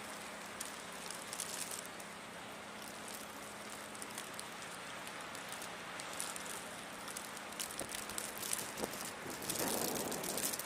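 Steady hiss of a snowstorm outdoors, with light scattered ticks of snow striking the microphone and a faint steady hum; a louder rustle comes near the end.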